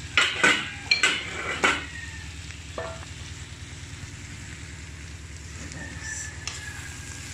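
Wooden spatula scraping and knocking against a metal wok as ground pork with diced potatoes and carrots is stirred, several loud strokes in the first two seconds. Under it, a steady sizzle of frying and a low steady hum.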